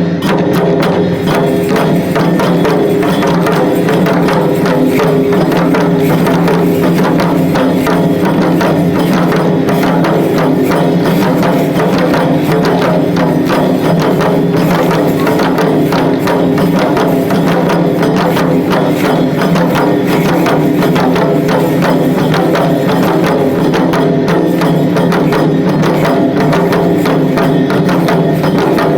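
Shishimai lion-dance accompaniment: a drum beaten in a fast, driving rhythm with sharp clacking percussion, played without pause.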